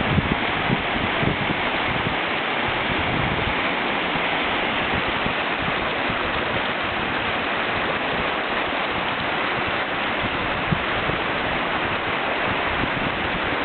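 Steady rushing of a whitewater river rapid, churning water in standing waves.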